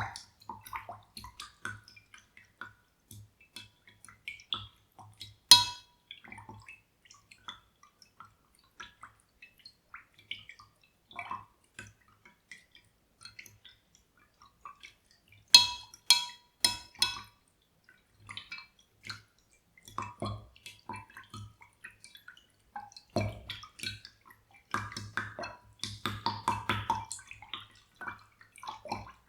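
Water dripping and splashing in small, scattered drops and clicks, with a quick run of sharp taps about 16 seconds in and busier splashing near the end.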